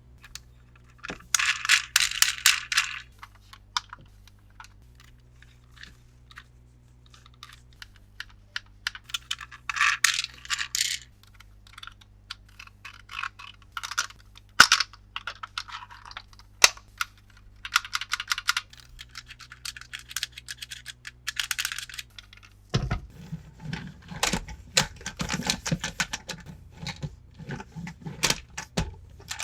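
Crinkling and crackling of toy packaging being handled and opened, in bursts of a second or two separated by pauses. From about two-thirds of the way through it turns into fuller rustling with plastic clatter.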